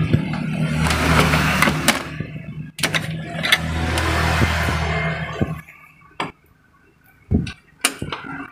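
A motor vehicle's engine running, loud in two stretches and then fading out about five and a half seconds in. A few sharp clicks follow near the end.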